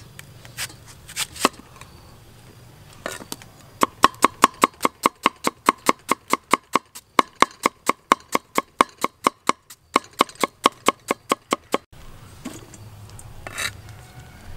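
Knife chopping firm fruit on a wooden cutting board: a few separate knocks at first, then a long run of quick, even chops at about four a second, broken once briefly midway.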